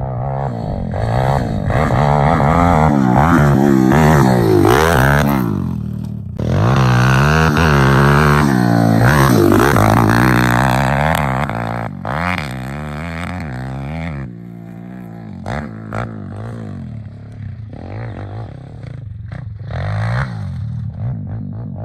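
Welsh Pit Bike 190cc single-cylinder four-stroke engine revving hard, its pitch rising and falling over and over as the bike rides close by, then fading as it climbs away up the hill in the last third.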